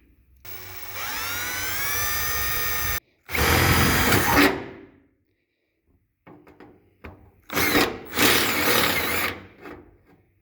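Power drill boring a hole through the aluminum toolbox. It whines up to speed with rising pitch over the first few seconds, then runs in several stop-start bursts as the bit cuts.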